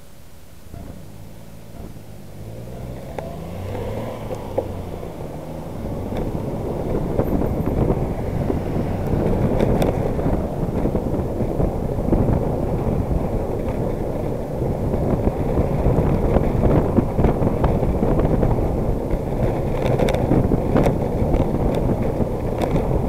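Road traffic and wind rumble on a moving handlebar camera, building up and staying loud once the ride is under way. In the first few seconds a car engine rises in pitch as it pulls away through the gears. Cars and a van pass close by, and there are a few sharp clicks.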